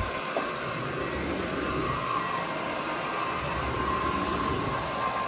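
Counter-rotating brush (CRB) carpet machine running, agitating pet enzyme treatment into carpet: a steady motor hum with a constant high whine.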